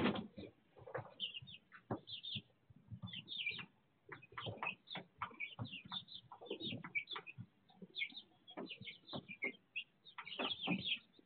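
Young chicks peeping almost without pause in short high chirps, with scattered soft taps and scratches as they move and peck over pine shavings.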